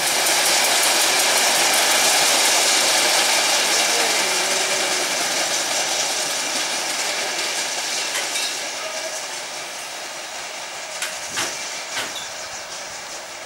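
Motorized rail trolley running along steel rails, a dense rapid rattle that is loudest as it passes and fades as it moves away. A few sharp clicks near the end.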